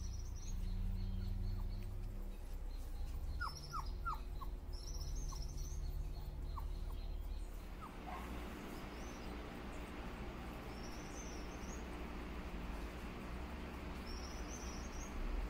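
Electric fan running with a steady low hum, joined by a wider rush of air from about halfway. Short high bird chirps come now and then, with a few brief falling squeaks near the middle.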